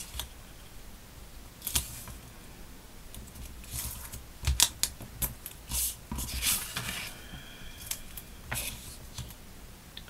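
Thin card and sticky tape being handled and pressed by hand: short paper rustles, crinkles and clicks at irregular intervals, busiest in the middle, with a brief high squeak about seven seconds in.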